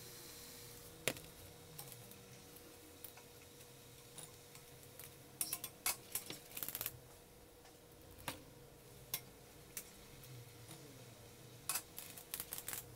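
Sharp metallic clinks and taps of a kembang goyang (rosette) mold knocking against a stainless steel bowl and pan, in quick runs about halfway through and near the end, over a faint steady hum.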